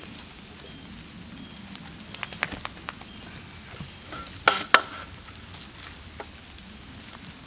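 Soil being scuffed and packed by boot around a freshly set wooden post: gritty scraping with scattered clicks, and two sharp knocks in quick succession about four and a half seconds in.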